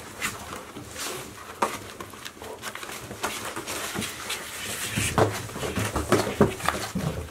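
Golden retriever puppies gnawing and tearing at cardboard boxes: scattered crinkles, rips and scrapes of cardboard, busier in the second half.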